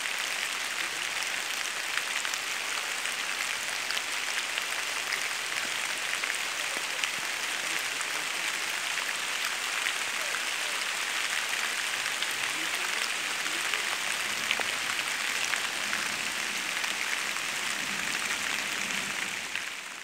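Steady rain falling on the leaves of the forest canopy: an even hiss full of many small, separate drop ticks.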